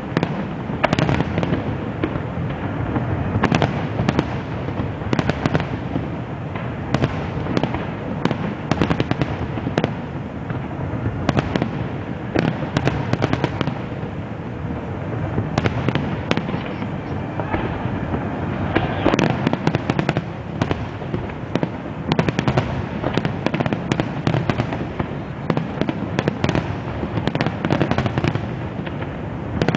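Fireworks display: a dense, continuous barrage of aerial shell bursts, several sharp bangs a second with no let-up.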